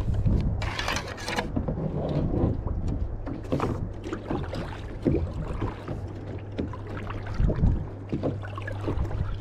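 Double-bladed kayak paddle dipping into the sea stroke after stroke, with splashing and water swirling at each stroke. A steady low hum runs underneath.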